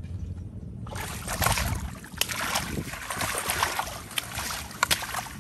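Water splashing and sloshing, starting about a second in and going on with many sharp splashes, over a low rumble of wind on the microphone.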